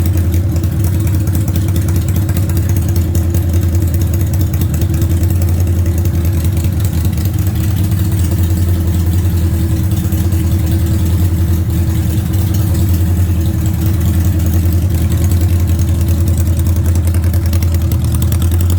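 An engine idling steadily at an even speed, with no revving or stalling.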